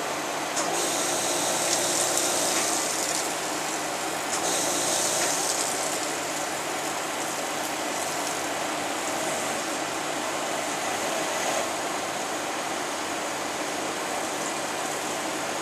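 CNC turning-milling center running: a steady machine noise, with two louder stretches of high hiss, one starting about half a second in and one about four seconds in.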